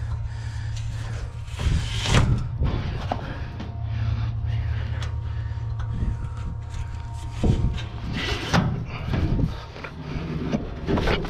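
An engine running steadily at idle, with several knocks and bangs over it, the loudest about two seconds in.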